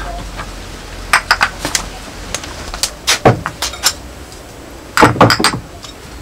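Glass spice jars with metal lids clinking and knocking against each other and a wooden shelf as they are picked up and set down. The sounds come in three quick runs of clicks, the last and heaviest about five seconds in.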